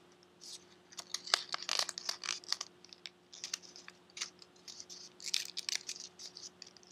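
Folded origami paper units being handled and tucked into one another's pockets: irregular small crinkles, rustles and taps of stiff paper.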